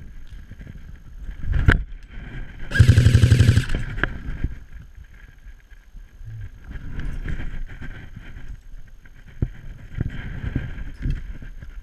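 An airsoft gun fires a rapid automatic burst lasting about a second, with a single sharp shot a second before it. Around them, scattered rustling of movement.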